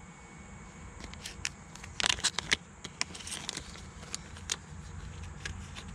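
Small plastic zip-lock parts bag crinkling and rustling as it is handled and opened to take out a new brass pinion gear, with a burst of crackles about two seconds in and scattered light clicks around it.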